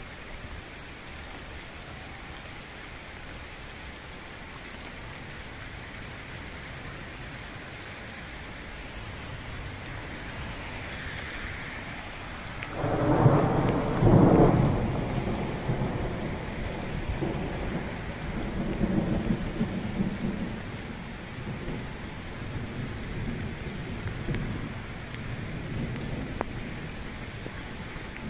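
Steady rain falling, then a long roll of thunder starting about halfway through: loudest at first, it rumbles on in several swells before dying away.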